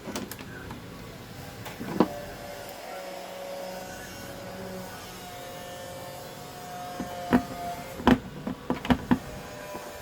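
Clicks and knocks of the repaired TV main board and its parts being handled and fitted back into the set, a sharp knock about two seconds in and a quick run of them near the end, with a faint steady whine in between.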